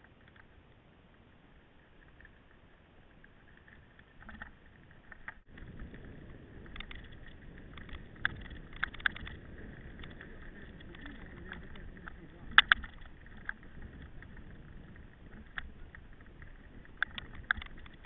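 Mountain bike riding over a rough track: a steady rumble of tyres and wind on the microphone, with sharp clicks and rattles from the bike, the loudest about twelve and a half seconds in. The first five seconds are much quieter.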